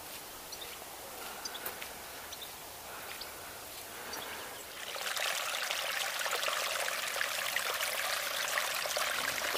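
Outdoor ambience of running water, a steady hiss with a few faint high chirps in the first half. The water grows louder and fuller about five seconds in.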